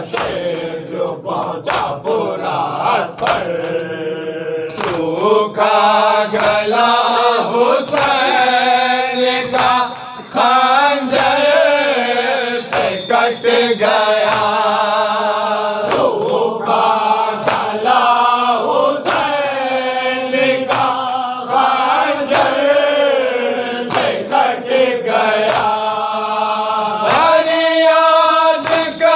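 A group of men chanting an Urdu nauha, a Shia lament, in unison, with a steady beat of open-hand chest-beating (matam) slaps.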